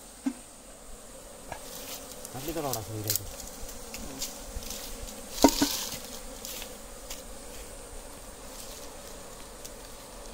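Wild honeybees buzzing steadily around a nest that has been cut open in a tree trunk. A short voice sounds about two and a half seconds in, and a single sharp knock comes about five and a half seconds in.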